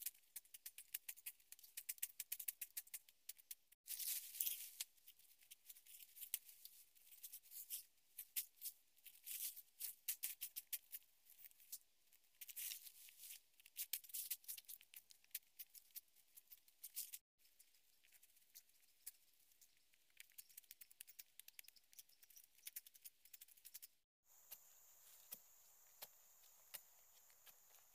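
Faint crackling, snapping and rustling of ferns and brush being slashed with a machete and pulled aside, with many sharp little clicks. Near the end this gives way to a steady high hiss with a thin whine behind it, and a few soft knocks as a wooden pole digs into the soil.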